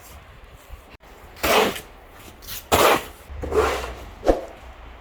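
Four short rough noises about a second apart, over a low wind rumble on the microphone.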